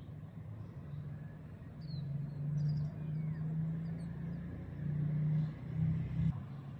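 Low steady hum of an unseen motor vehicle's engine, swelling twice and stopping suddenly near the end, with faint bird chirps above it.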